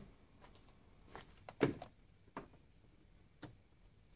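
A few light knocks and clicks of gear being handled, about six in all, spread out over the seconds, with the loudest thump about one and a half seconds in.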